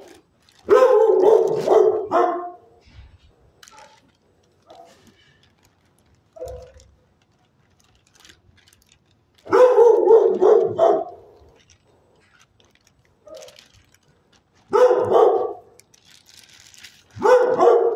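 A dog barking in four bouts of several quick barks each, a few seconds apart, the first bout about a second in and the last running into the end.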